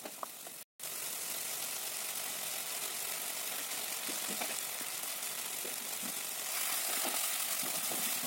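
A paste mixture of coconut paste, ginger-chilli paste and pointed gourd seed paste sizzling in mustard oil in a kadhai, a steady hiss with a few faint ticks. It cuts out for an instant just under a second in and grows a little louder near the end.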